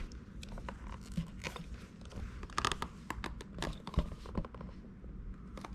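Scattered small plastic clicks and scrapes as the old, broken center-console lid latch of a C6 Corvette is pressed and pulled sideways to work it off. The clicks come in a quick cluster a little before the middle, with the sharpest single click about two-thirds through.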